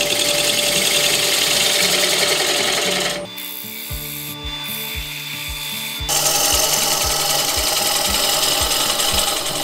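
A turning tool cutting a spinning wood blank on a lathe, a steady dense shaving and scraping noise. The cut stops a little after three seconds in and starts again about six seconds in, with background music underneath.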